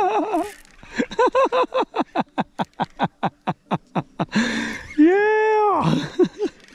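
A bird calling from the mangroves: a fast run of about fifteen short rising-and-falling hooting notes, then one longer drawn-out note and a few short ones after it.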